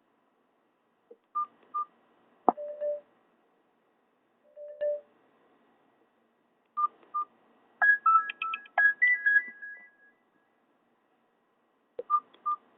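Short Nokia 5230 ringtone and alert tones played through a Nokia 216 phone's small speaker. They come as brief electronic beeps and single notes with silent gaps between them, and a quick run of higher notes about eight seconds in.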